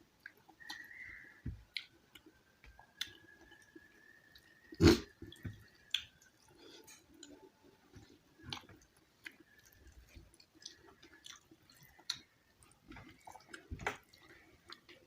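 Close-miked chewing and wet mouth smacks of someone eating soft rice and mashed vegetables, in irregular small clicks. About five seconds in comes one much louder sharp knock, the loudest sound here.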